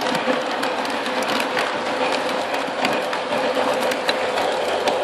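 Lionel O gauge model train running on its track: a steady whine with many irregular clicks of the wheels over the rail joints, heard from a car riding on the train.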